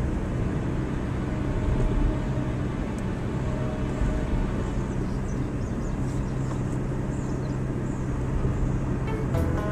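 A car driving along a paved road, heard from inside the cabin: steady engine hum and tyre noise at an even level.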